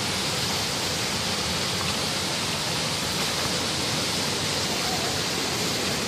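Small waterfall pouring over a rock ledge into a pool: a steady, even rush of falling water.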